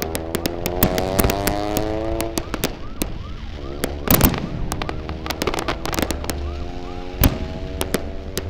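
Aerial fireworks shells bursting in quick succession, sharp bangs with crackling. A heavier pair of bangs comes about four seconds in.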